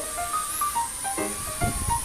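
Background music: a light melody of short, quick notes, with a thin high whine wavering in pitch behind it.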